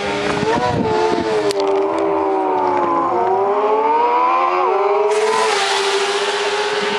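Motorcycle engines revving and running hard, their pitch sinking and then climbing, with one sudden pitch drop of a gear change about two-thirds of the way in.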